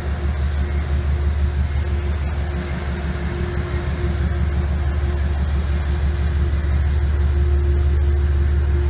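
Train moving along a far track of the station: a steady low rumble with a constant hum above it, slowly growing louder.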